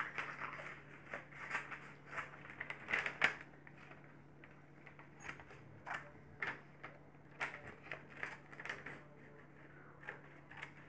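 Scissors snipping and crunching through paper in irregular short bursts, with the paper rustling as it is handled; the scissors are poor and struggle to cut. The snipping comes in two spells, with a quieter pause in the middle.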